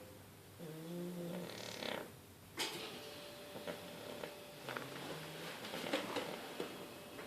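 Snoring from a sleeper: two low, pitched snores about four seconds apart, each with a breathy rush of air, and a few faint clicks in between.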